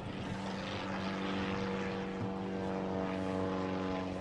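1933 Great Lakes biplane's piston engine and propeller droning steadily overhead in aerobatic flight, growing a little louder.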